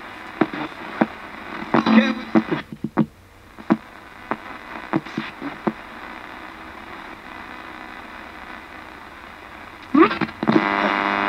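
A Thomson portable digital radio used as a ghost box, sweeping the FM band and chopping broadcast voices into short fragments with clicks between stations. It settles into quieter static hiss for several seconds, and a loud, pitched burst from a station comes in near the end.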